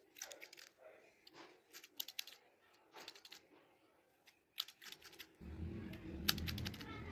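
Barber's scissors snipping beard hair held against a comb, in quick runs of sharp snips. About five seconds in, a low steady rumble starts underneath.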